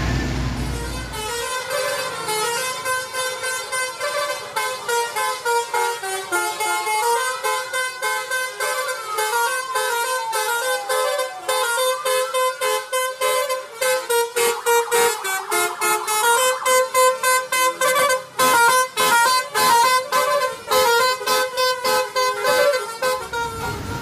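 Bus telolet horn, a multi-trumpet air horn, playing a fast tune of stepped notes that switch rapidly on and off. A few sliding tones come in around the middle.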